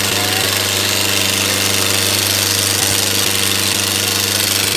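Sonalika DI 750 III Sikander tractor's diesel engine running steadily under heavy load as it drags a disc harrow weighted with sacks through the soil.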